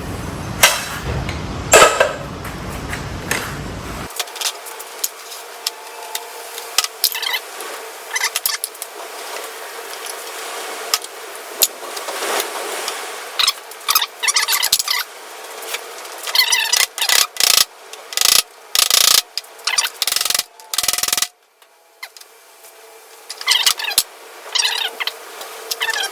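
Hand-tool work on a wheelchair: clicks, knocks and scraping of tools and metal parts, with bursts of quick ratchet-like clicking, as machine screws are taken off the donor chair's seat.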